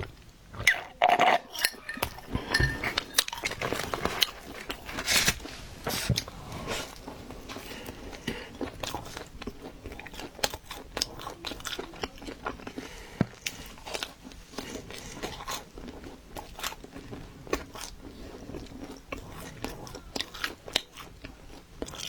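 Close-up chewing and biting of pizza: crisp crust crunching in many short crackles, with louder bites in the first several seconds and steady chewing after.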